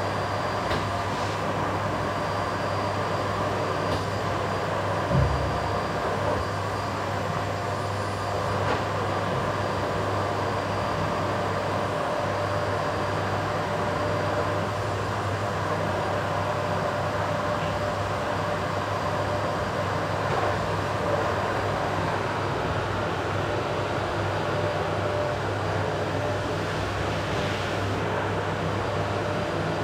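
Vacuum cleaner running steadily on a wooden floor, a constant motor drone with a steady hum. A brief low knock comes about five seconds in.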